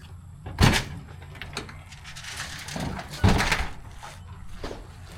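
Two loud thuds about two and a half seconds apart, the second trailing into a brief scrape.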